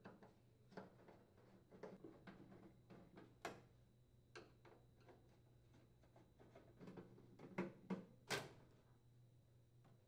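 Faint, scattered clicks and light taps of a Phillips screwdriver working the mounting screws out of a microwave oven's metal bottom panel, with a few sharper clicks near the end.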